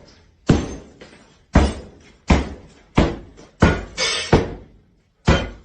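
A sledgehammer striking a newly built bathroom shower, seven heavy blows at an uneven pace of roughly one every three-quarters of a second. Each blow dies away quickly.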